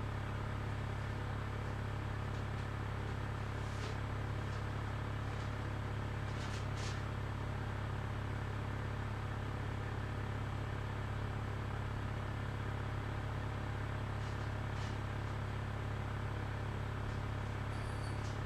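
A steady low hum, unchanging in level, with a few faint light ticks.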